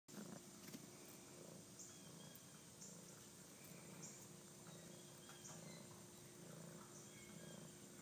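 Faint purring of a kitten, a low rumble that swells and eases in a steady rhythm a little faster than once a second, with brief high chirps over it.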